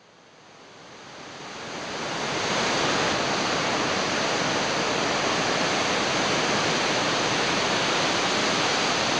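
Steady rush of ocean surf, fading in over the first two to three seconds and then holding level.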